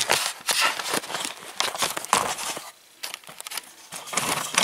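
Irregular rustling, scraping and crackling handling noise as a handheld camera is moved about and brushes against things, with no steady tone.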